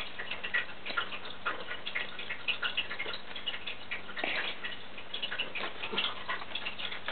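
Marker tip tapping and scratching on paper while small dots are drawn in: a quick, irregular run of light ticks, with a short scratchy stroke about four seconds in.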